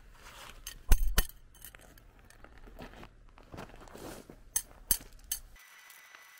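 A metal tent stake knocking and clinking against river pebbles as it is pushed into the gravel, with gravel crunching underfoot. Two sharp knocks come about a second in, then three lighter clicks later. Near the end it drops to a faint steady hiss.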